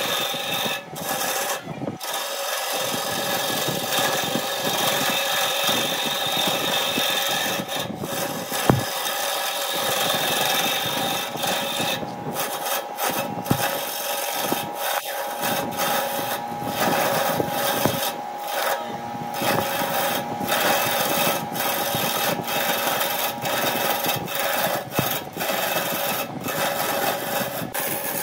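Wood lathe spinning a wooden blank while a hand-held turning tool cuts into it: a steady scraping hiss from the cut over the lathe's steady motor hum, with several brief drops in the cutting noise.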